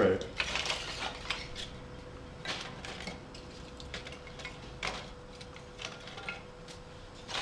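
Dry split wooden kindling sticks being laid by hand onto scrunched newspaper in a wood-burning stove's firebox, knocking against each other and the metal grate in scattered light clacks.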